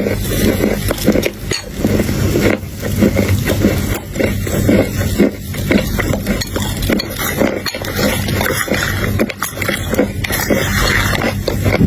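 Close-miked eating: chocolate chunks crunching and being chewed, many small crunches in quick succession.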